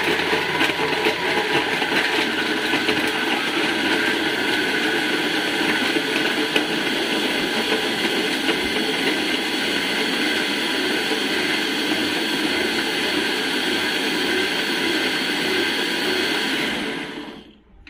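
Countertop blender running steadily as it blends ice, a banana and liquid into a frozen cocktail. It is switched off and winds down near the end.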